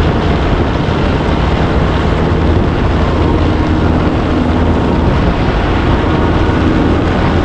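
Peterbilt 362 cabover semi truck under way: a steady diesel engine drone with road and wind noise.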